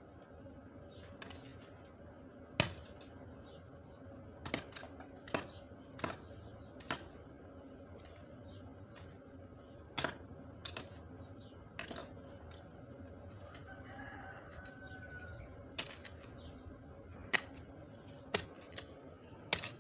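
Weeding in a farm plot: a dozen or so irregular sharp knocks and snaps as weeds are struck and pulled from the soil, with a faint bird call about two-thirds through.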